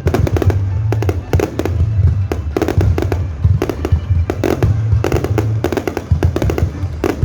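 Fireworks display bursting in quick, irregular succession, many bangs a second, with music playing underneath.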